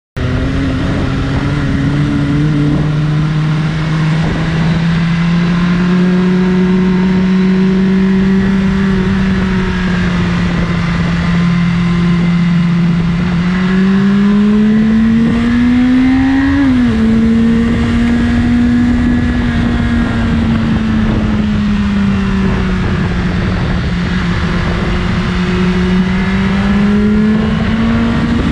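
BMW S1000RR inline-four engine with its stock exhaust, running under way at mid revs, its pitch drifting slowly up and down as the throttle changes. About 14 s in the pitch climbs for a few seconds, then drops sharply a little before 17 s as it shifts up.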